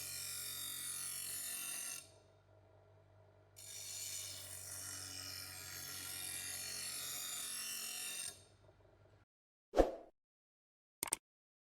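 Power tool working metal: a steady low motor hum under a rasping abrasive noise that stops for about a second and a half, then resumes for about five seconds. The noise and hum cut off, then a single sharp knock comes near the end, followed by a couple of faint clicks.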